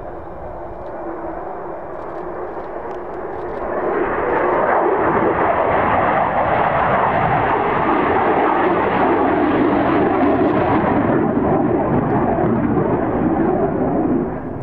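F-15E Strike Eagle's twin jet engines as it climbs away after pulling up over the runway: a rushing jet noise that swells sharply about four seconds in, stays loud for about ten seconds, then drops off suddenly near the end.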